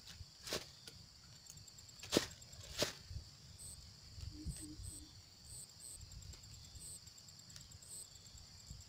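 Insects calling steadily from the surrounding vegetation, with short repeated high chirps joining in after about three and a half seconds. Three sharp clicks sound in the first three seconds.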